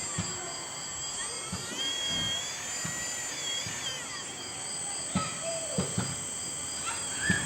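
1/16-scale RC Caterpillar 385 CL excavator working: its small motors whine, the pitch rising and falling as the machine moves, with several sharp knocks in the second half.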